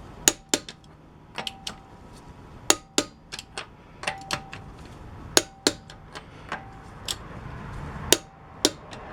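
Click-type torque wrench clicking over and over as lug nuts are re-checked at 105 ft-lb, sharp metallic clicks, some in quick pairs, a few leaving a short ring.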